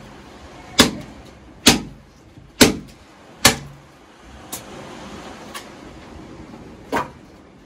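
Machete chopping a dry stick of firewood: sharp woody chops about one a second, four hard strokes followed by three lighter ones.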